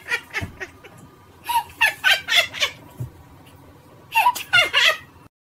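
A woman laughing hard in two bursts of quick repeated pulses, about a second and a half in and again after four seconds; the sound cuts off just before the end.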